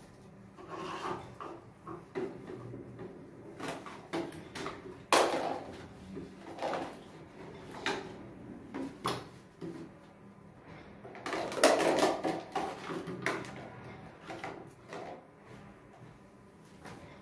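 Irregular knocks and clatters of household things being handled and put away while tidying a room. There is a sharp knock about five seconds in and a burst of clattering around twelve seconds.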